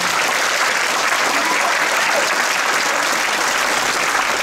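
Audience applauding steadily at the end of a dance number.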